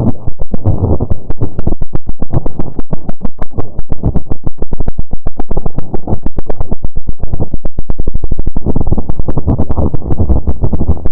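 A loud, muffled, distorted rumble chopped into rapid pulses, several a second: a made-up 'weird, strange' sound effect.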